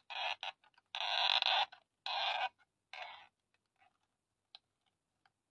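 The ridged plastic handwheel of a handheld mini sewing machine being turned by hand: four creaking, scraping bursts, the longest about a second, then a few small clicks.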